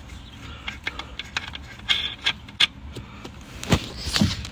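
Irregular small metal clicks and light knocks of 15 mm nuts being run down onto a rear strut's top-mount studs with a hand wrench, with a couple of louder thumps near the end.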